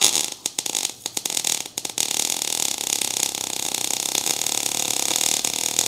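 MIG/MAG welding arc on thin 18-gauge (1.2 mm) square tube, with the wire feed (amperage) turned down to the lowest the machine gives. The arc strikes and crackles unevenly with sharp pops for about two seconds, then settles into a steadier crackling hiss that stops just before the end.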